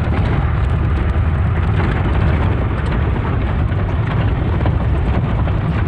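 Vehicle engine running steadily under load with rough-road noise as it drives over an unpaved rocky track, with light rattles throughout.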